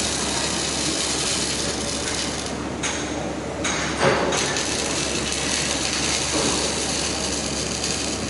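Robotic arc-welding torches welding steel scaffolding plank frames: a steady crackling arc that drops away briefly about three seconds in. A sharp knock comes about four seconds in.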